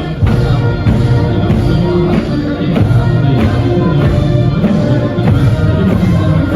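Soldiers singing a marching song together, loud and continuous over a steady beat of about two strokes a second.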